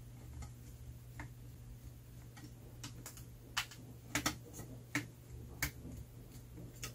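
Small screwdriver working screws out of an opened Casio Algebra 2.0 calculator's case and circuit board: sharp, irregular clicks of the metal tip against the screws and plastic, coming more often in the middle of the stretch, over a faint low hum.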